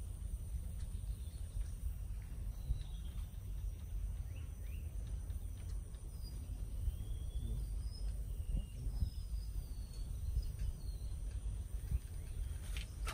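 Rural wetland ambience: scattered short bird chirps and whistles over a steady high insect drone and a low steady rumble, with a couple of sharp clicks near the end.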